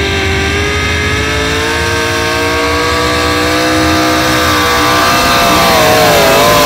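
A modified pulling pickup truck's engine running at high revs under full load as it drags the pull sled. The pitch holds steady and the sound grows louder as the truck comes closer, then the pitch wavers up and down near the end.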